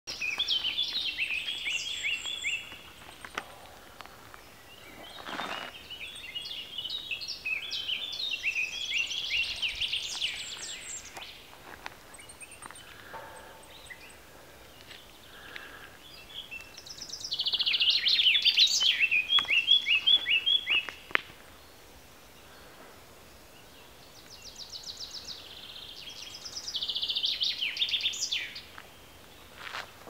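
Songbirds singing in woodland: several song phrases of a few seconds each, full of quick repeated high notes, with quieter pauses between them.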